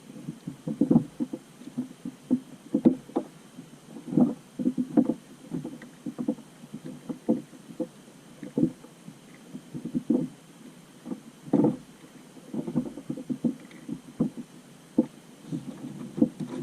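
Irregular knocks and slaps against an inflatable fishing boat, one or two a second and uneven in strength.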